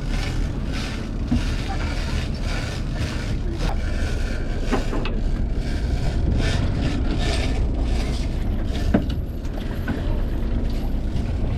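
Charter fishing boat's engine running steadily, with the rhythmic mechanical clicking of a fishing reel being wound in against a hooked skipjack tuna.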